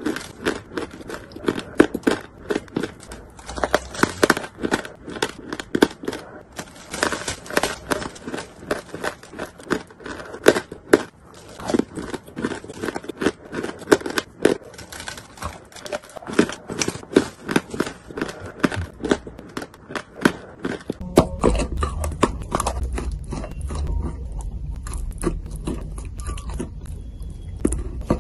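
Crunching and crackling as a lump of white chalk is bitten off and chewed, crisp crunches coming several times a second. About 21 seconds in the crunches thin out and a steady low hum comes in underneath.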